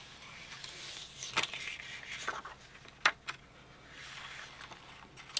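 Paper strip sliding and rustling in a Creative Memories Floral Peaks decorative border punch, with a few short sharp clicks as the punch is worked. The strongest click comes about three seconds in and another near the end.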